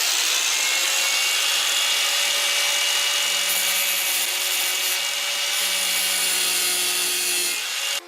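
Ryobi drill boring a large hole through a car's steel hood with a big bit, a steady loud grinding with a high whine, cutting off suddenly near the end.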